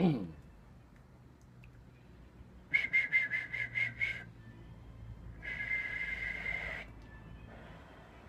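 A man whistling breathily into a telephone handset: a quick run of about eight short whistles, then a second or so later one longer held whistle.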